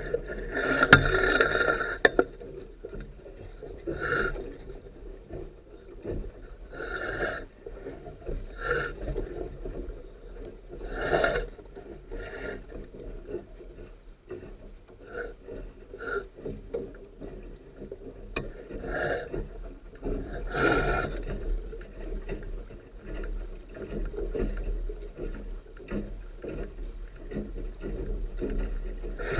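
Water splashing and slapping against the hull of a Sunfish sailboat under sail, in irregular louder bursts every few seconds over a steady low rumble.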